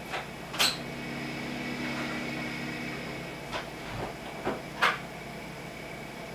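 Finches giving a handful of short, sharp chirps spread over a few seconds, over a steady low hum.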